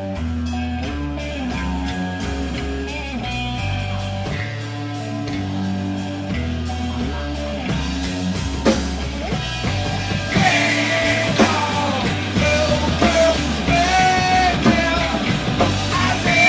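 Rock band playing live: bass and guitar, with the drums getting busier about halfway through and a wavering high melody line coming in over the top.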